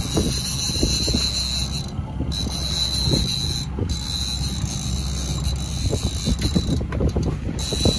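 Conventional fishing reel being cranked under load to bring up a fish on a heavily bent rod, its gears giving a stream of rapid, irregular clicks over a steady low rumble of wind on the microphone.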